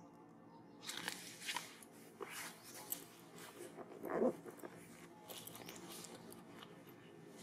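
A macaque crunching and chewing food, with irregular crisp bites starting about a second in. The loudest crunch comes a little past the middle.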